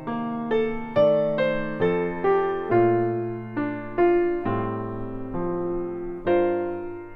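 Background solo piano music: a slow, gentle melody over chords, each note struck and left to fade.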